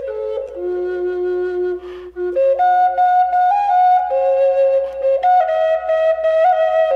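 Handmade bamboo flute playing a slow melody of held notes that step up and down, with a short breath about two seconds in.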